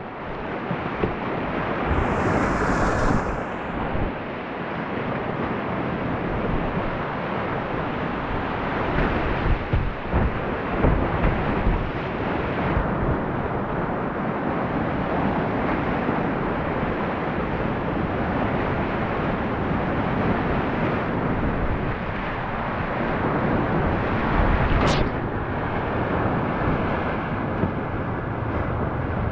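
Rushing whitewater of a river rapid, a loud continuous wash of water with wind buffeting the microphone, and one sharp click near the end.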